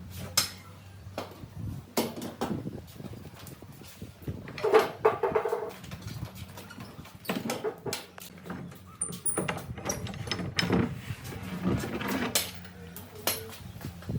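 Irregular knocks and clatter over a steady low hum, with a short pitched sound about five seconds in.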